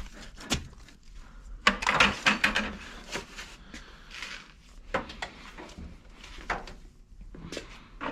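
Knocks and clatters of tools and other items being handled and set down, with a busy run of clattering about two seconds in and single knocks after.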